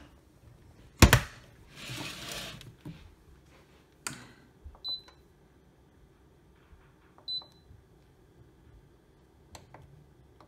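Rice cooker lid shut with a loud clunk about a second in, a short rustle, then the cooker's control panel giving a few short high beeps as its buttons are pressed to set it to slow-cook for 2 hours.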